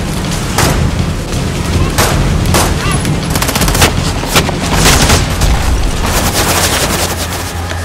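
Gunfight sound effects: many pistol shots, single cracks at first, then quick strings of rapid fire around the middle and toward the end, over a steady low rumble.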